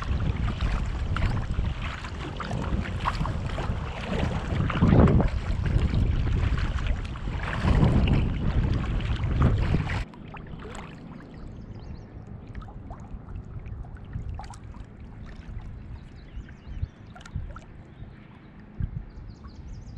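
Wind buffeting the microphone over water sounds of a kayak moving along the creek. About halfway it cuts abruptly to quieter water lapping at the kayak's plastic hull, with small splashes and drips from paddling.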